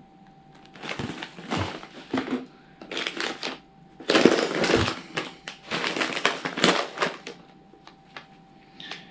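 Plastic crisp packets crinkling and rustling as they are handled and rummaged through in a box, in irregular bursts, loudest about four seconds in.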